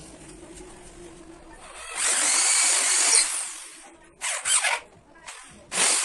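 Electric drill run in bursts: one long run about two seconds in, then two short runs near the end.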